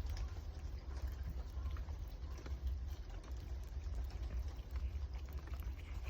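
A cat eating, with small wet chewing and smacking clicks over a steady low rumble.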